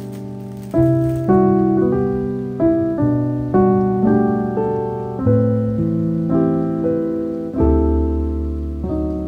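Background piano music: slow chords, each struck and left to fade before the next. A rain ambience underneath stops about a second in.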